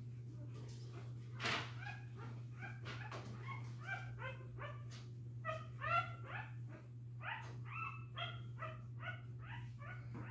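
Week-old American bully puppies squeaking and whining in a quick string of short, high cries, busier in the second half, over a steady low hum.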